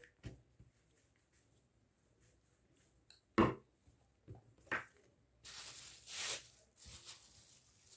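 Kitchen work with dough and a wooden rolling pin on a marble worktop: a few short knocks, the loudest about three and a half seconds in, then a rustling scrape about five and a half seconds in and a shorter one near the end as the dough sheet is folded and lifted.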